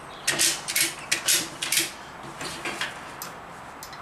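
Short bursts of metallic clattering and scraping from handling a CO2 fire extinguisher bottle as it is strapped upright to a metal stand. There are about four bursts in the first two seconds, then a few fainter clicks.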